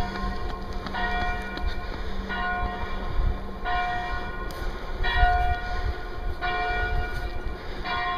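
Church bell ringing from a stone church tower: evenly spaced strikes, about one every second and a half, six in all, each ringing on until the next.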